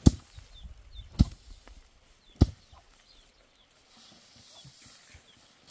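Three sharp knocks, evenly spaced about a second apart, like blows being struck, with faint high chirps in the background.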